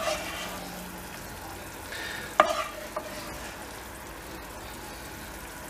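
Wooden spoon stirring and scraping pan juices in a frying pan over a faint steady sizzle, with a few sharp knocks of the spoon against the pan that ring briefly.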